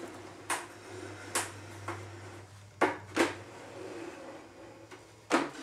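Plywood lathe stand with a crank-and-gear lift being handled: about six separate wooden knocks and clunks at irregular intervals, the loudest near the end, over a faint low hum.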